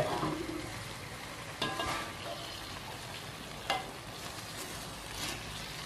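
Tilapia sizzling in an aluminium wok, with a steady frying hiss. A metal spatula scrapes against the pan twice, about two seconds in and again near four seconds, as it works under fish that is sticking to the bottom.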